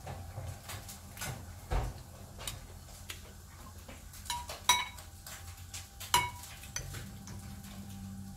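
Metal cutlery clinking against a small glass bowl: light taps and scrapes, with two sharper ringing clinks in the middle about a second and a half apart.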